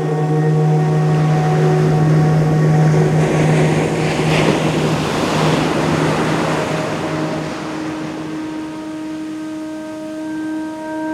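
A long chanted "Om" held on one low note, over the wash of ocean surf, with a wave swelling and breaking about four to five seconds in. The chant fades out about two-thirds of the way through, and a steady higher note carries on over the surf.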